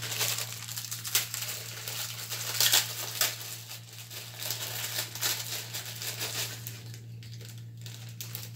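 Irregular crinkling and rustling as the cook handles things at the stove, busiest in the first few seconds, over a steady low hum.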